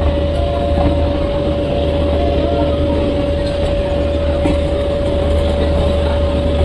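Standing passenger train idling: a steady low drone with a constant high-pitched hum over it.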